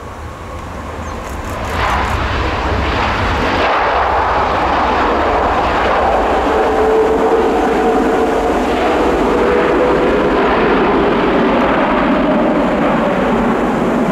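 Boeing 787-8 Dreamliner's GEnx turbofan engines roaring on the landing rollout. The roar swells sharply about two seconds in and then holds, with a faint whine that slowly falls in pitch.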